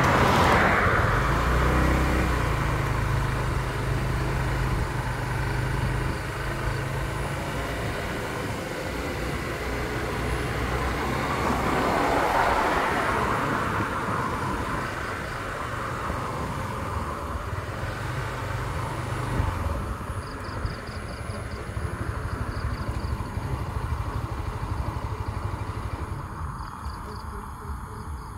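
Motor vehicle noise: a low engine hum with road noise, swelling and fading once about halfway through.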